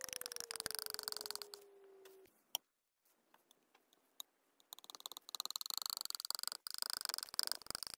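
Thick acrylic paint squelching and crackling under a mixing spatula as it is mashed and spread, in a rapid run of sticky clicks. It breaks off for a couple of seconds a little after a quarter of the way in, with one sharp click in the gap, then starts again for the second half.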